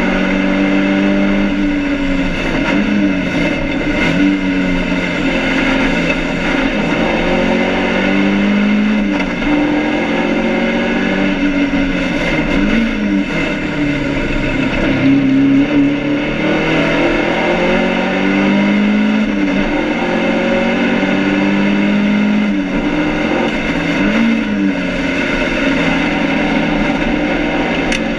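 BMW 2002 race car's four-cylinder engine heard from inside the cabin, pulling hard with its pitch climbing through the gears and dropping at each change, with brief up-and-down blips between. It is being short-shifted to spare an engine that is overheating.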